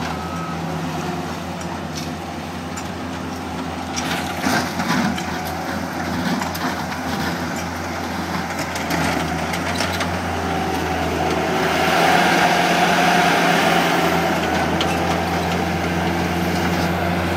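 Skid-steer loader engine running steadily, with a few sharp knocks about four to five seconds in, growing louder from about twelve seconds in.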